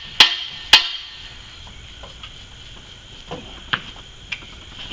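Two loud metallic strikes about half a second apart, each ringing briefly, followed by a few lighter knocks, with insects buzzing steadily in the background.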